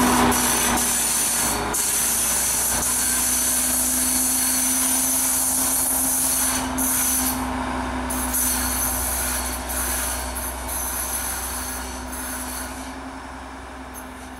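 Sri Lanka Railways Class S9 diesel multiple unit running past at close range and pulling away, a steady mechanical hum under the noise of the train on the rails, fading over the last couple of seconds as it recedes.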